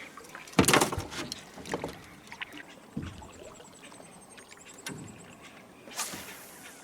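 Knocks and thuds on a small boat, the loudest about half a second in and a few lighter ones later, with a short hiss near the end.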